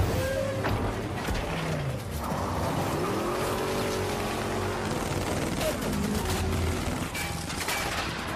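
Car-chase soundtrack of several high-powered car engines revving hard, their pitch rising and falling, over a dense noise of tyres and gravel, with a few sharp knocks in the first second.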